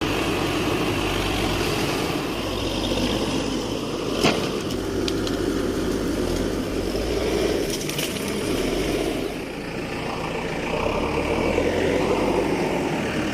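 Backhoe loader's diesel engine running steadily, with one sharp knock about four seconds in and a few fainter clicks later.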